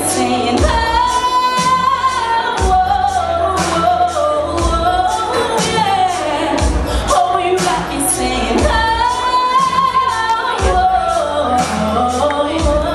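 A woman singing into a microphone, holding and bending long notes, over music with a steady beat: a low thump about every two seconds and regular high ticks.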